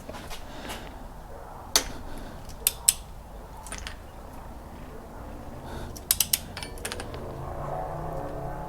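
Click-type torque wrench tightening cylinder head bolts, with faint ratcheting between sharp clicks as bolts reach their set torque of 80 foot-pounds: one click about two seconds in, two near three seconds and three in quick succession just after six seconds.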